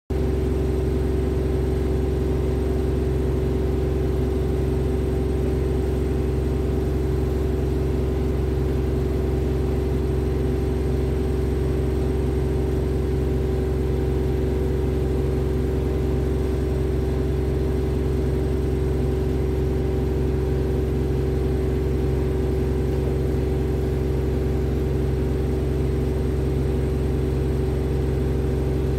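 A steady, unchanging low hum with a few held tones, like a motor or machine drone.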